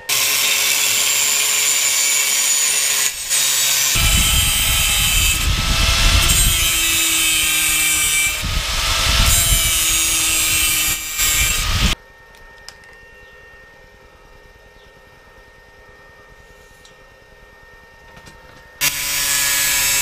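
Angle grinder with a cutoff wheel running and cutting thin steel, its whine filling the first twelve seconds and growing heavier once the wheel bites in, about four seconds in. It stops suddenly, and after several quiet seconds it starts up again near the end.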